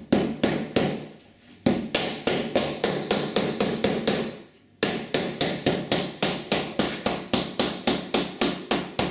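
Nylon mallet tapping a uPVC glazing bead into its groove on a door panel: quick repeated knocks, about three to four a second, with two brief pauses, about a second in and about four and a half seconds in.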